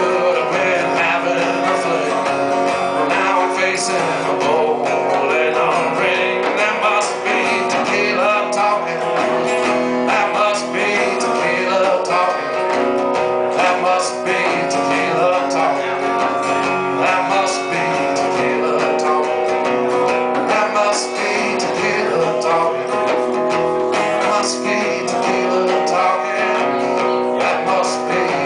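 Acoustic guitar strummed and picked in an instrumental stretch of a country song, keeping up steadily without a break.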